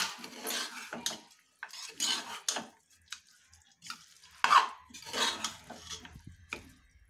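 A long steel spoon scraping and knocking against the inside of a pressure cooker while stirring chicken pieces with spice powder, in irregular strokes.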